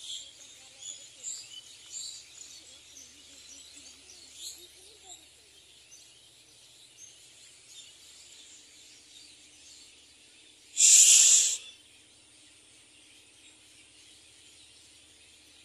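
Small birds chirping in short calls over a steady high hiss during the first few seconds. About eleven seconds in comes a loud burst of noise, under a second long, that stops suddenly.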